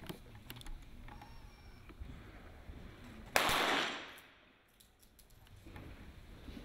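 A single pistol shot from a .22 sport pistol, sudden and loud about three seconds in, its report ringing on and dying away over about a second in an indoor range hall.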